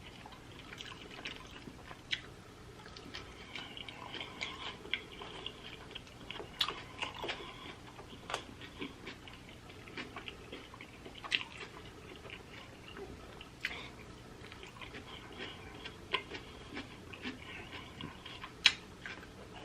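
Close-miked chewing of pizza, with wet mouth sounds and scattered sharp lip smacks and clicks.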